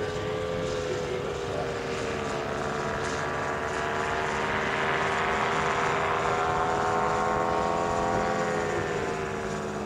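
eLazair twin electric-motor ultralight flying overhead: a steady hum of its two motors and propellers, with a pair of close tones, growing louder toward the middle and dropping slightly in pitch near the end as it passes, then fading.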